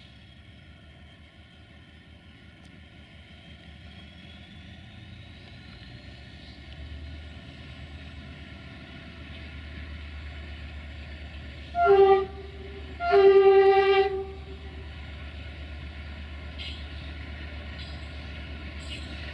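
060-DA (LDE2100) diesel-electric locomotive approaching slowly, its Sulzer 12-cylinder diesel engine running with a low drone that grows louder as it nears. About twelve seconds in it sounds its horn twice, a short blast and then a longer one of about a second.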